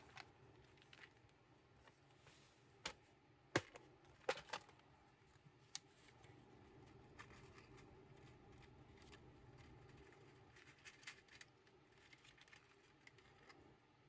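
Near silence broken by a few sharp plastic clicks and knocks as a clear plastic compartment box of connectors is handled and opened, then faint rustling and small ticks as strips of metal crimp terminals are handled.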